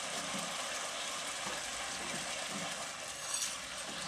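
Steady sizzling hiss of soy-sauce liquid boiling in a non-stick frying pan, with vermicelli noodles soaking in it and a wooden spatula stirring.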